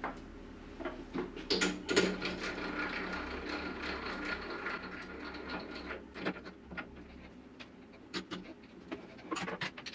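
Scattered metallic clicks and knocks of tooling and a workpiece being handled and fitted at a bench-top metal lathe, with a faint steady machine hum for a few seconds in the first half.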